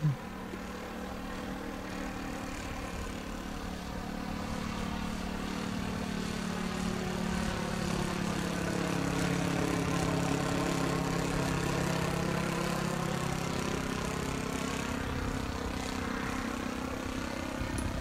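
OS 95 four-stroke glow engine of a radio-controlled de Havilland DH-60 Gipsy Moth model biplane running steadily in flight. The drone grows louder toward the middle as the model passes closer, then eases off a little.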